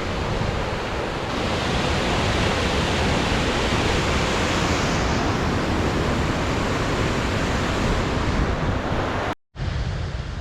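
Steady rushing of a mountain creek, mixed with wind buffeting the microphone; the sound cuts out for a moment near the end.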